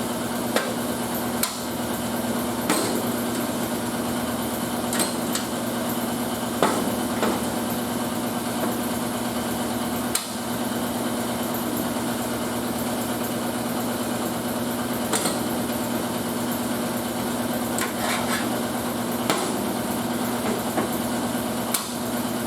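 Light, irregular hammer taps on sheet steel, one every second or few, over a steady mechanical hum from shop equipment.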